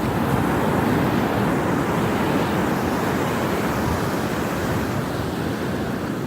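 Storm surf from an approaching hurricane breaking and washing up the beach in a steady rush, with wind gusting on the microphone.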